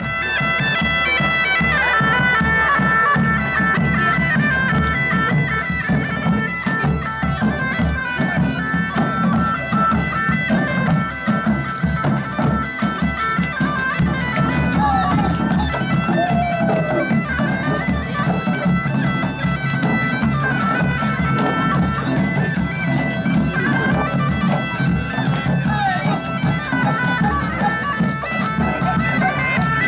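Bagpipes playing a melody over a steady drone, with large hand drums beating along, medieval-market street music.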